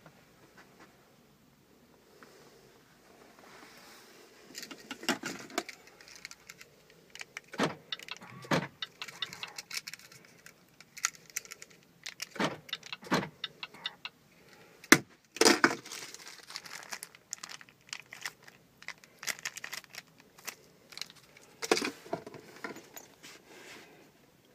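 Smart key fob and its keyring rattling and clicking in the hand: irregular jangles and knocks after a quiet first few seconds, the loudest about fifteen seconds in.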